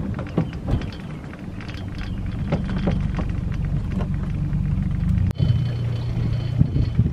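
Mercury outboard motor on a pontoon boat running quietly at low speed, a steady low hum under splashing water and wind on the microphone. There is a short break about five seconds in, after which the hum is steadier.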